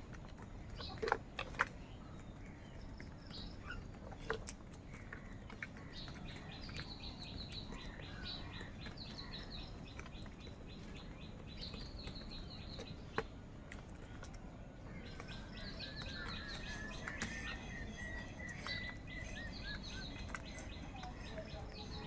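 Birds chirping in quick high twittering runs, with a warbling song joining in about two-thirds of the way through. A few sharp taps stand out, the loudest near the start.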